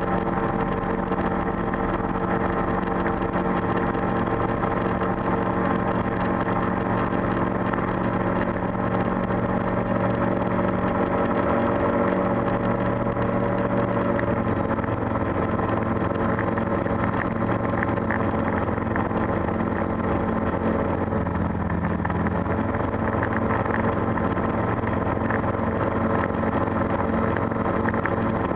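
Calidus gyroplane's Rotax four-cylinder engine and pusher propeller running steadily, heard from inside the cockpit. The pitch shifts slightly a few times and dips briefly, then recovers, about three-quarters of the way through.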